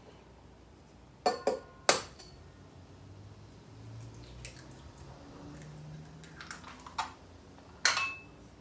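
Eggs tapped and cracked on the rim of a stainless steel mixing bowl: a quick cluster of sharp taps a little over a second in, and more taps near the end.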